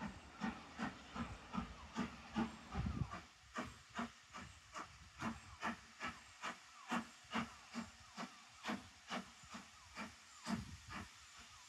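Exhaust beats of LMS Stanier Black Five steam locomotive 44871 working under steam, a steady chuff of about two beats a second with hiss. The beats are stronger with a low rumble over the first few seconds, then carry on a little quieter.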